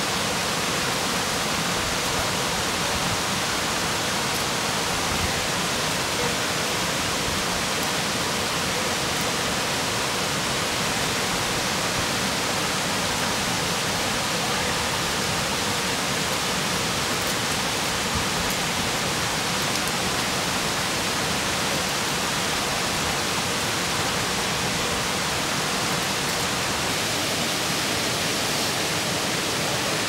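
Steady rushing of a waterfall, an even hiss of falling water with no change.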